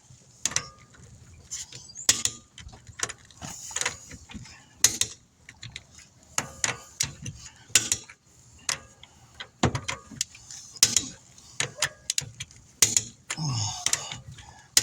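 Click-type torque wrench set to 100 foot-pounds, ratcheting and clicking as the wheel's lug nuts are tightened: a string of sharp, irregular clicks.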